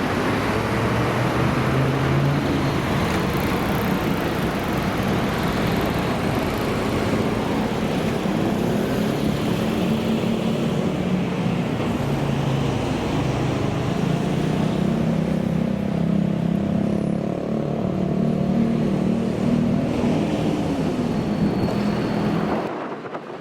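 Road traffic: vehicle engines running and accelerating close by, their pitch rising and falling over steady road noise. It drops away abruptly near the end.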